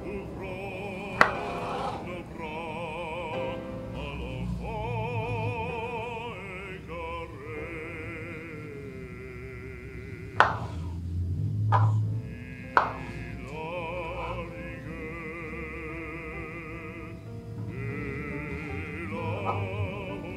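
Background music with operatic singing, the voice wavering in vibrato. Three sharp knocks of a knife on a cutting board cut through it, one about a second in and two more around the middle.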